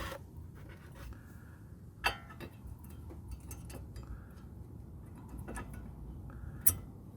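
A few sharp clicks and light taps as brake pad hardware is pushed into place in a car's front brake caliper bracket, the loudest about two seconds in and near the end.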